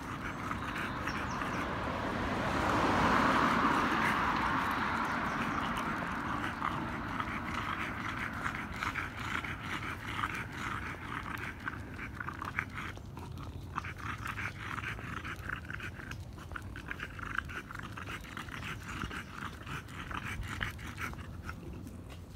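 French bulldog panting in quick, short breaths while walking on a leash. A rushing noise swells and fades about three seconds in.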